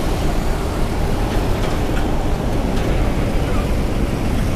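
Steady road traffic noise: an even low rumble of passing vehicles.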